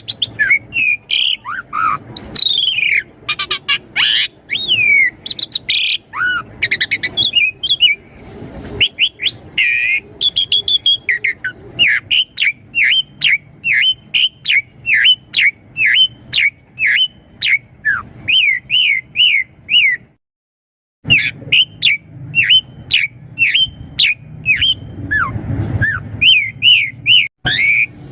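Asian pied starling (jalak suren) singing loudly: a varied run of whistles and chattering notes, then a long series of quick down-slurred whistles, about two or three a second. The series breaks off for about a second of silence partway through.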